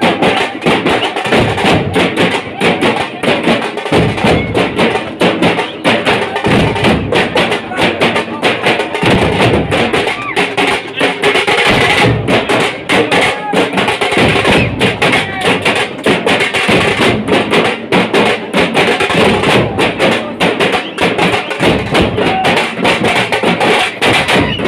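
Loud drumming from a procession drum band, with voices of the crowd mixed in.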